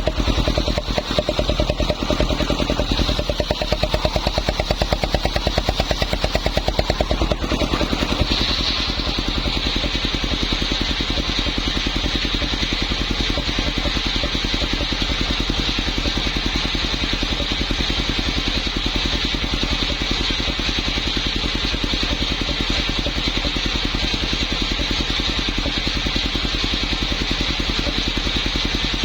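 Engine-driven homemade circular saw running steadily with a rapid even pulse. About eight seconds in the sound shifts: a higher hum comes in and holds.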